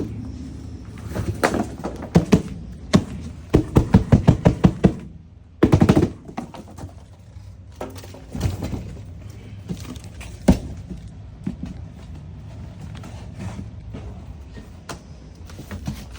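Thuds, knocks and rustling of items and packaging being handled while a box is unpacked, with a fast run of sharp knocks about four seconds in and a short loud burst of noise about six seconds in.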